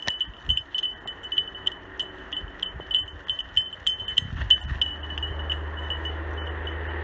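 A small bell or tags on a running dog's collar jingling in quick rhythmic pulses, about three a second with each bound, growing fainter as the dog runs off. A low steady rumble comes in about halfway through.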